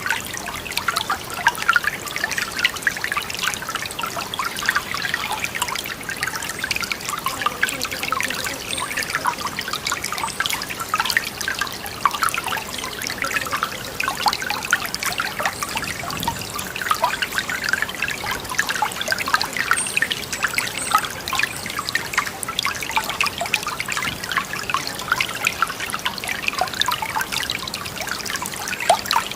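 Water trickling steadily, a continuous busy patter of small splashes.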